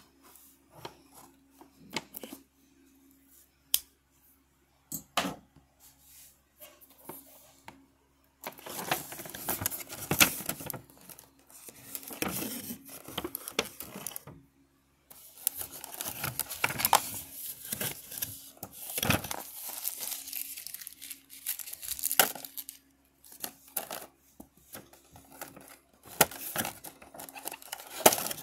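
Clear plastic packaging tray and box being handled: scattered clicks and taps for the first several seconds, then long stretches of crinkling, rustling plastic with sharp clicks mixed in as the contents are pulled out.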